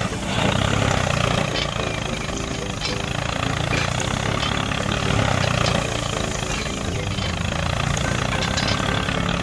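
Miniature tractor's engine sound running steadily, a low continuous rumble with a few faint ticks over it.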